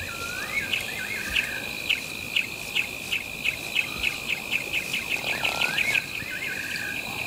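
Night-time bush ambience: a steady high insect trill with regular chirps that quicken midway. Twice a whistled call swoops down and up and ends in a short buzzy trill.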